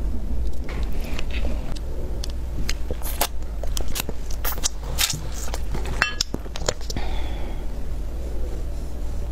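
Close-miked eating of a flaky hand-grabbed pancake (shou zhua bing): biting and chewing, with a run of sharp crisp clicks in the middle. A steady low hum runs underneath.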